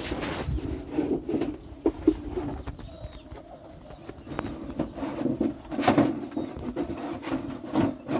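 Low repeated bird calls, with scattered knocks and rustling close by.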